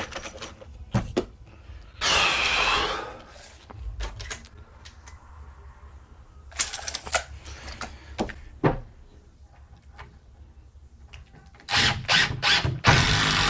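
Carpentry handling noise: scattered knocks and clicks of tools and lumber, with short scraping or rasping bursts about two seconds in, around the middle, and near the end.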